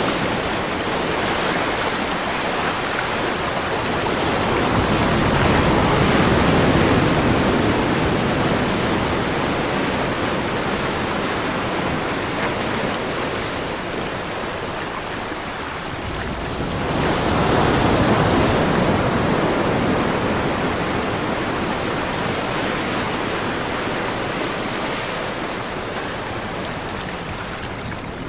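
Ocean waves washing ashore in a steady rushing wash, with two larger swells breaking about six seconds and eighteen seconds in, each building and ebbing over several seconds.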